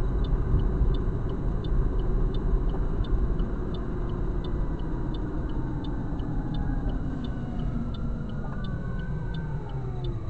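A car's turn-signal indicator ticking evenly at about three clicks a second, over the steady rumble of road and engine noise inside the cabin. A faint whine slides in pitch in the last few seconds as the rumble eases off.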